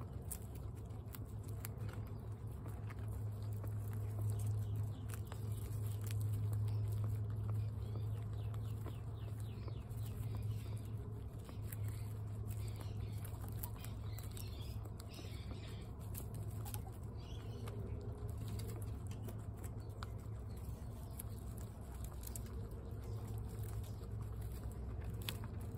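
Guinea pigs crunching hard feed pellets from steel bowls: many quick, irregular crunches over a steady low hum.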